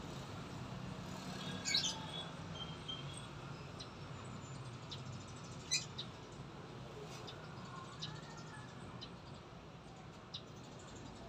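Faint bird chirps over a steady low hum, with two sharp clicks, one near the start and one about halfway through.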